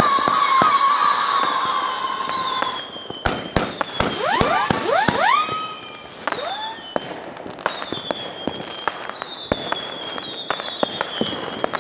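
WECO Night Howler firework battery firing howler shots. Several whistles overlap, a cluster rises together about four seconds in, and a single whistle slides slowly down through the second half, over many sharp cracks.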